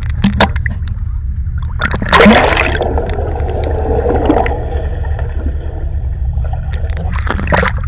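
Water splashing as a GoPro camera plunges under the surface about two seconds in, followed by muffled underwater gurgling and bubbling. A steady low rumble of water on the housing runs underneath, with a few sharp clicks near the start and near the end.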